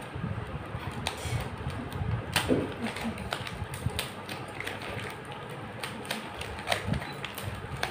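Paper courier envelope and plastic wrapping being pulled open and handled: irregular crinkling and crackling with many sharp clicks.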